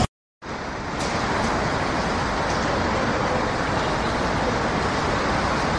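A steady, even rushing noise with no distinct events, fading in after a brief moment of silence near the start.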